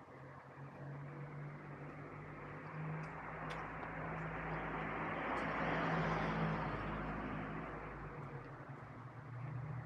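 A passing vehicle: a steady engine hum with a rushing noise that builds to a peak about six seconds in, then fades.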